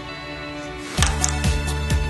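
Background music: a soft, steady passage, then about a second in a louder, regular beat comes in.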